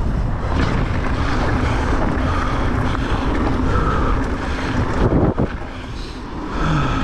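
Wind buffeting the microphone of a mountain biker's action camera, over the rumble of knobby tyres rolling fast on a dirt and gravel trail. There is a brief knock about five seconds in.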